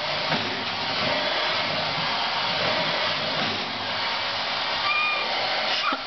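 Vacuum cleaner running steadily, a constant airy hiss through its long hose. A brief faint high-pitched squeak comes near the end.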